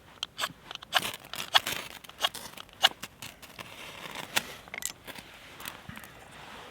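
Dry kindling being handled and snapped by hand: a quick, irregular run of sharp cracks and crackles that thins out about five and a half seconds in.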